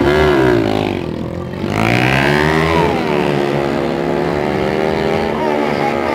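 Drag-racing motorcycle launching from the start line and accelerating hard down the strip, its engine revving up and dropping in pitch at each gear change, about three times, as it pulls away.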